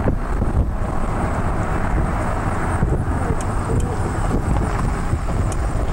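A car driving along, its engine and tyre noise a steady, even rumble heard from inside the car.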